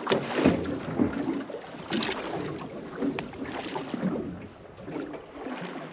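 Sea water sloshing and slapping against the hull of a small fishing boat in irregular surges, with a sharp click about three seconds in.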